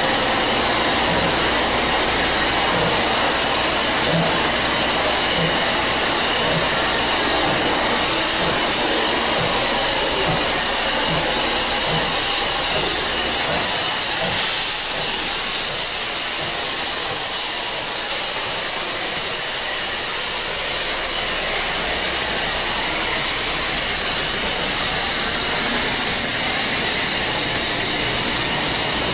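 SL Hitoyoshi steam train running, a steady hiss-like rush of noise. A regular low beat comes a little more than once a second for the first twelve seconds or so, then the sound evens out into a steady hiss.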